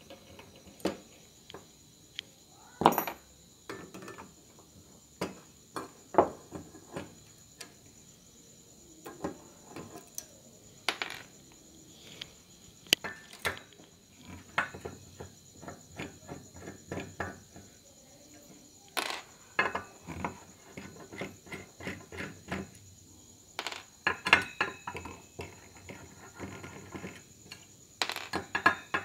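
Screwdriver working small screws out of an aluminium amplifier heatsink: irregular metallic clicks, scrapes and taps, with a few louder knocks as screws and parts are set down on the workbench. A faint steady high whine runs underneath.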